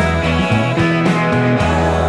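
Background rock music with electric guitar and a heavy bass line.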